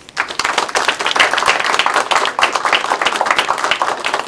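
Audience applauding: dense clapping from many hands that begins almost at once and starts to thin out near the end.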